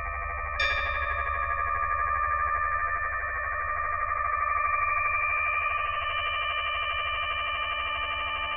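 Electro-acoustic music: a drone of several sustained steady tones with a slight pulsing. About half a second in, a bright metallic struck tone rings out and fades over a second or so, and near the end new lower tones join the drone.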